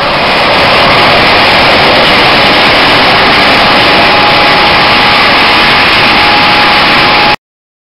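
Helicopter turbine engine and rotor running close by, a loud steady rush with a thin steady whine coming in about halfway. The sound cuts off abruptly shortly before the end.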